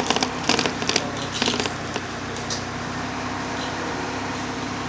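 Steady engine hum and road noise heard inside the cabin of a moving vehicle, with a few short, sharp hissing clicks in the first second and a half.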